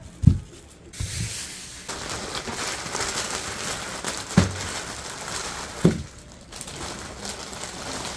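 Thin plastic produce bag crinkling and rustling as a bunch of bok choy is pulled out of it, with a few soft thumps.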